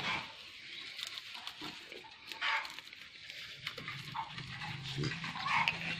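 Short animal grunts and squeaks mixed with scraping and rustling, with a low steady sound joining in near the end.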